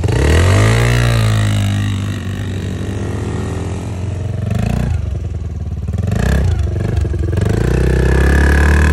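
Small four-stroke engine of a Yamaha youth ATV revving up as the quad pulls away, easing off, then revving up again near the end.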